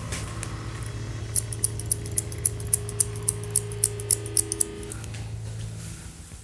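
Barber's scissors snipping through wet hair in a quick run of short cuts, about four or five a second, for a few seconds in the middle.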